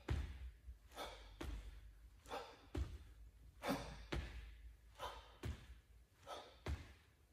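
A person doing squat jumps: a hard breathy exhale on each jump and a low thud as the feet land on the floor, repeating in a steady rhythm about every second and a third.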